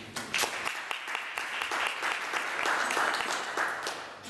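Audience applauding: many hands clapping, swelling and then fading out near the end.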